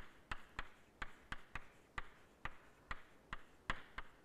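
Chalk writing on a blackboard: a quick, irregular series of about a dozen sharp taps and short scrapes, roughly three a second, as a word is chalked out in cursive.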